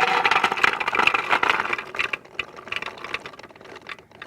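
Sprouted garbanzo beans poured into a plastic food processor bowl, rattling densely at first and then thinning to scattered clicks as the last beans drop in.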